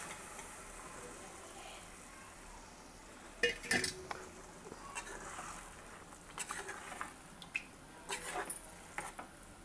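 Metal spoon clinking and scraping against an aluminium pressure-cooker pot as boiled chickpeas are stirred into frying masala, over a faint steady sizzle. The first sharp clinks come about three and a half seconds in, with more scattered clinks in the second half.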